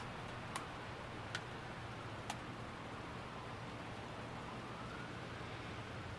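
Steady rain hiss, faint, with three sharp clicks in the first couple of seconds. In the second half a faint tone rises and then falls away.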